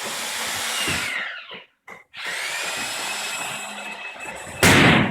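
A power tool running in two long bursts, its motor whine rising as the second burst starts. A short, much louder sharp burst comes near the end.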